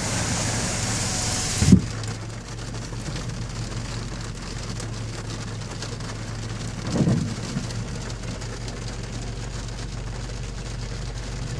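Cars driving through deep floodwater on a street, tyres throwing spray with a steady watery hiss. A louder hiss for the first couple of seconds cuts off suddenly with a thump, and a low steady hum runs underneath.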